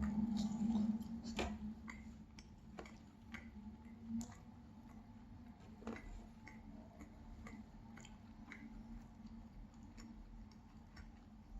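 A person chewing a mouthful of cheese pancake, with a low hum over the first second or so, then scattered small wet mouth clicks and smacks.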